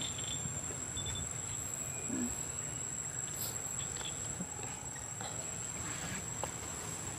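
Insects calling in one unbroken, steady high-pitched drone, over a low background rumble.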